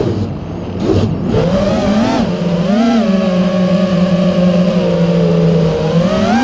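A motor or engine note that drops and wavers for the first couple of seconds, holds a steady pitch through the middle, then climbs sharply near the end.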